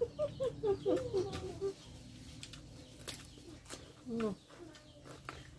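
Low bird calls: a quick run of short calls in the first two seconds, then a single falling call about four seconds in, with a few faint clicks between them.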